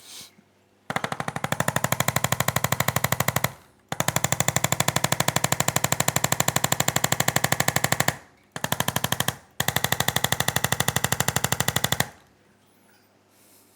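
Handheld electric percussion device tapping rapidly, about ten strokes a second, run in four bursts of a few seconds each with short pauses between.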